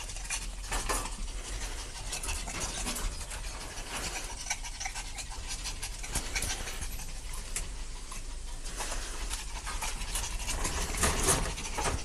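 Chihuahua puppies panting and scuffling on the floor as they wrestle, with many short scratchy ticks throughout, a little louder near the end.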